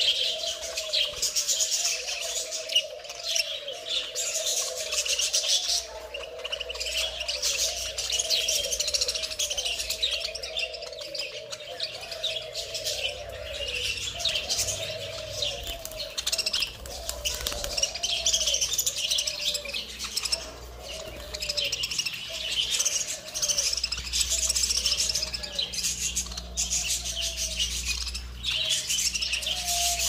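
A flock of budgerigars chattering and chirping continuously, many birds calling over one another.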